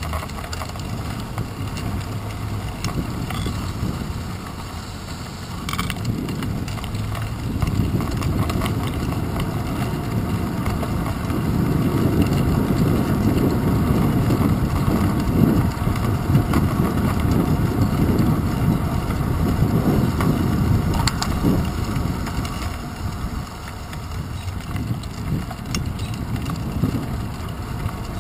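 Bicycle riding along a paved path: wind rushing over a handlebar-mounted microphone with the rumble of the tyres on the pavement, louder through the middle stretch, and a few faint clicks and rattles.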